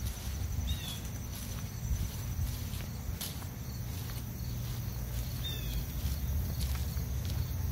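Outdoor park ambience: a steady low rumble with scattered faint clicks, and two short, high, falling bird chirps, one under a second in and one past the middle.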